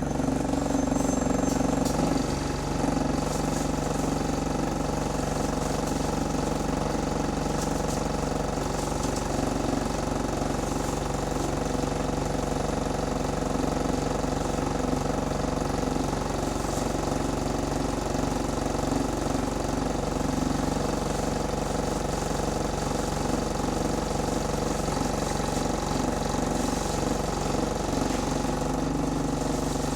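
A single-decker bus engine running steadily at an even pitch, in an engine said to have a rod knock.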